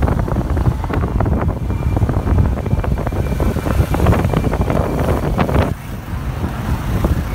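Wind buffeting the microphone on a moving motor scooter, over the rumble of the scooter and the motorbike traffic around it; briefly quieter a little before the end.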